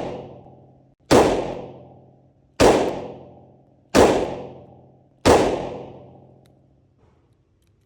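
Ruger LCR snub-nose revolver firing four single shots, roughly a second and a half apart, each sharp crack trailing off in about a second of echo.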